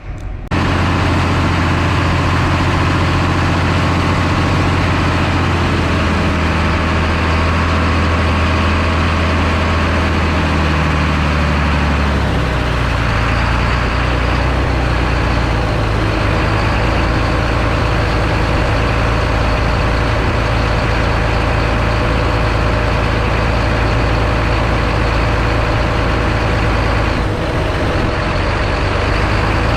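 Tractor diesel engine running steadily, heard up close from the hood. Its deep engine tone shifts about twelve seconds in, then holds steady.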